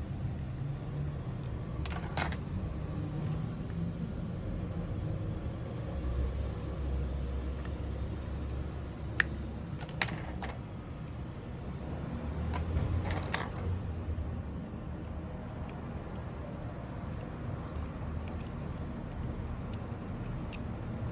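Low rumble of passing street traffic, swelling twice, with a few short clicks and clatters of small hard objects.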